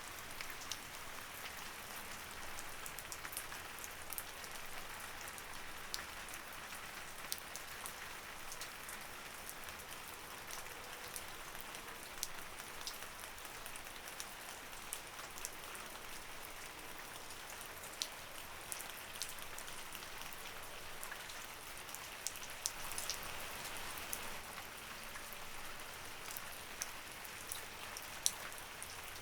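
Light rain falling steadily, with a soft hiss and many separate drops ticking on a surface throughout.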